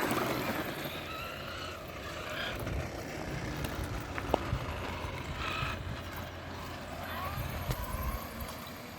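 Electric radio-controlled trucks driving, their motors running and rising and falling in pitch as they speed up and slow down.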